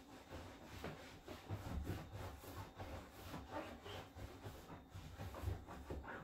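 Cloth wiping and rubbing over a leather sofa in repeated, uneven strokes.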